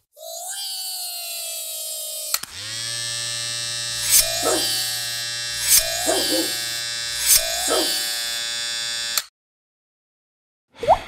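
Electric hair clippers buzzing steadily, shaving a dog's back, then cutting off sharply. Three short squeaks sound over the buzz about a second and a half apart. Before the buzz there is a high tone for about two seconds, sliding slightly down.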